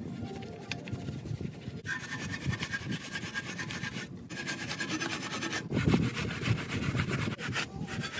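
Wheel-cleaning brushes scrubbing a soapy alloy wheel: a continuous rubbing and swishing of bristles against the spokes and rim that swells and fades with each stroke.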